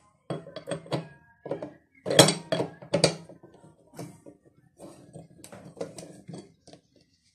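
Screwdriver prying and turning a metal retaining ring off a washing machine drum: a run of metallic clinks, knocks and scrapes, with the loudest clanks about two and three seconds in.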